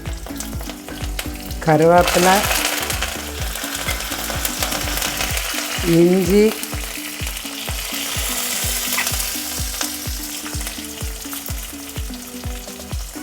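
Hot oil sizzling in a pan of tempering (mustard seeds, urad dal and chillies) as curry leaves go in; the sizzle flares up sharply about two seconds in and carries on while the mixture is stirred and ginger is added.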